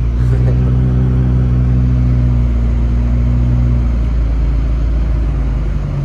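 Car engine and road noise heard from inside the cabin while driving: a steady low engine drone that eases off about four seconds in.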